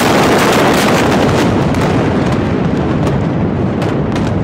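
Blast of a massive ammonium-nitrate explosion heard at close range: a loud, dense rumble that slowly fades, with scattered sharp crackles through it.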